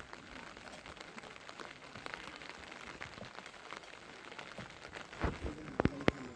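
Steady rain falling, with a patter of drops throughout. A few sharp knocks come near the end.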